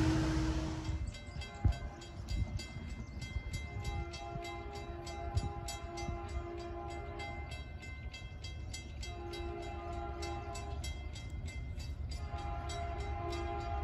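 A train horn sounding a series of long blasts, several notes at once, separated by short gaps. Through it a grade-crossing bell rings rapidly, about four strikes a second.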